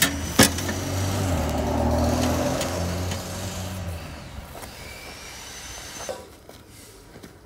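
Two sharp knocks, then a motor vehicle's engine running with a low hum that fades away over about four seconds, like a vehicle passing. A smaller thump follows about six seconds in.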